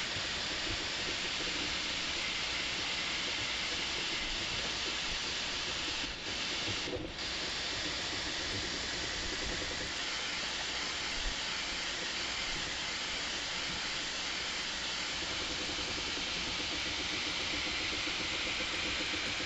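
Bambu Lab A1 3D printer running with its audio sped up tenfold, so the fans and stepper motors blur into a steady hiss, with two short dips about six and seven seconds in.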